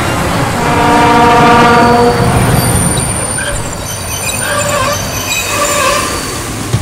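PKP ST44 diesel locomotive's horn sounding one steady chord of several notes for about a second and a half, then high wavering squeals from the wheels of its container train.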